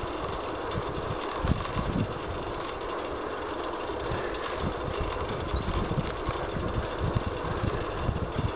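Wind from riding a bicycle rushing over a compact camera's built-in microphone: a steady rush with low, irregular buffeting gusts.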